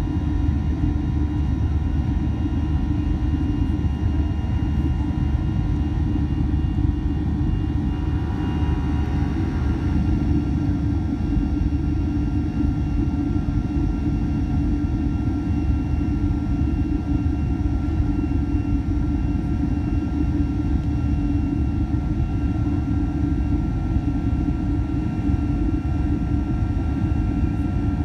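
Boeing 737 passenger cabin noise during the climb after take-off: a steady roar of the jet engines and rushing air, with faint steady engine whine tones above it.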